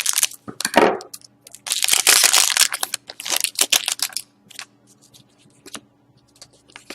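A foil trading-card pack being torn open and its wrapper crinkled, in three loud crackling bursts over the first four seconds, then lighter clicks and rustles as the cards are handled.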